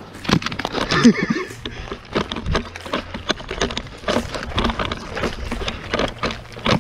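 Running footsteps crunching over dry ground strewn with pine needles and twigs, an irregular beat of about two to three steps a second.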